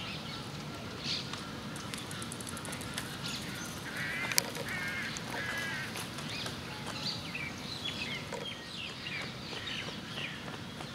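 Birds calling: many short chirps, and a run of three longer calls about four to six seconds in, over a steady low background rumble. A single sharp click sounds midway.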